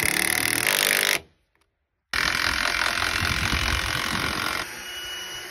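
Cordless drill running hard as it drives a screw into a pine rafter, stopping abruptly about a second in. After a short silence, a second long, steady, loud mechanical noise runs for a few seconds and eases off near the end.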